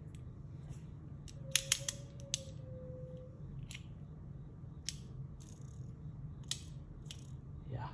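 Metal haptic coin fidget clicking through its detents as it is turned: a quick run of sharp clicks about a second and a half in, then single clicks spaced about a second apart.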